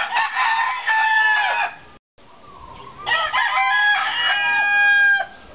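Roosters crowing: two loud crows, the second longer and ending on a long held note. A brief silent gap falls between them.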